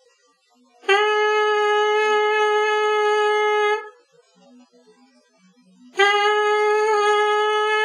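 A trumpet mouthpiece buzzed on its own, without the trumpet: two long, steady notes at the same pitch, the first about a second in and the second about six seconds in, each started with a 'tu' tongue attack.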